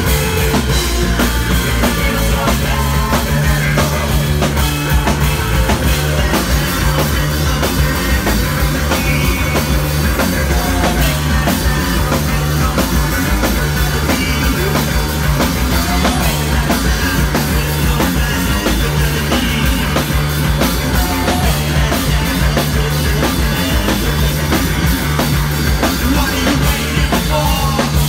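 Rock band playing live and loud: electric guitars and a drum kit, with the drummer singing.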